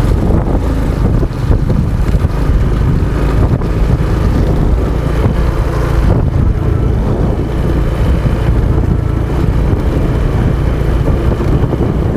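Honda XRM 125's single-cylinder four-stroke engine running steadily while the motorcycle is ridden, under heavy wind rumble on the microphone.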